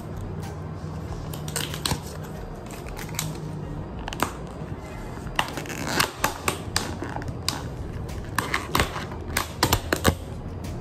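Clear plastic food container lid being gripped and pried off: a run of sharp plastic clicks and crackles that thickens about halfway through, over a steady low hum.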